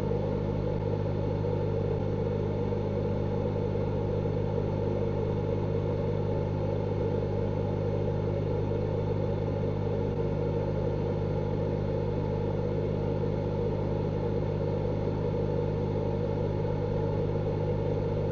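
A steady low hum that holds an even level throughout, like a motor or fan running.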